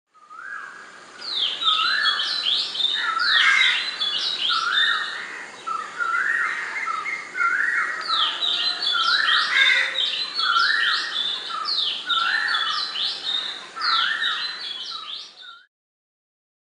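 Indian grey hornbill calling: a long run of short notes, each rising and then held briefly, about two a second, with higher notes over them.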